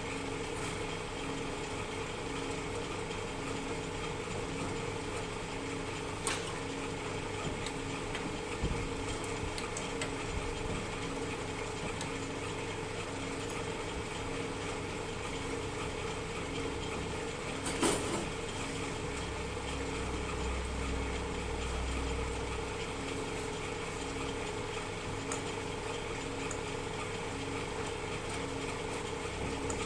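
Metal lathe running with a steady geared whir and a faint regular pulse in its hum. A few sharp clicks or knocks sound over it, the loudest about eighteen seconds in.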